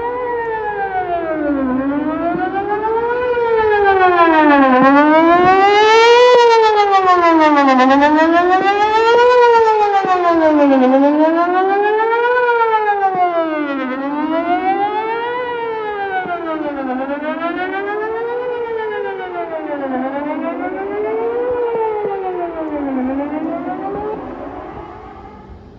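Whelen WPS 4008 electronic outdoor warning siren sounding a wail, its pitch rising and falling about every three seconds. It swells louder, then eases off and dies away near the end.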